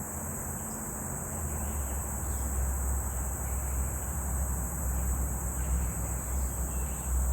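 A steady chorus of insects trilling high and continuously in swampy woods, over a low, steady rumble.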